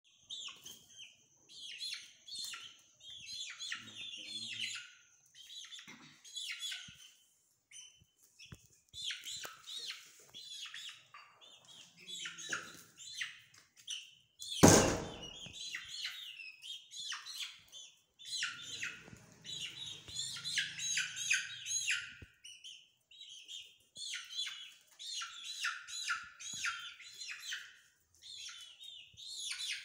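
Young chickens peeping in rapid runs of high chirps, over and over. A single loud knock about halfway through.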